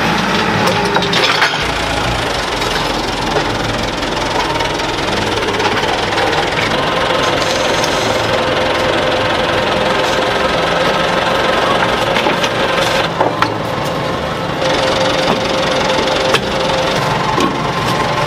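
Forklift engine running steadily while the forklift drives and carries a scrapped car, with a few sharp knocks.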